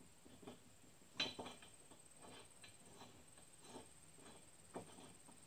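Faint, scattered clicks and clinks of metal hardware being handled, the loudest a little over a second in: a mower blade, washer and bolt being fitted by hand under a zero-turn mower deck.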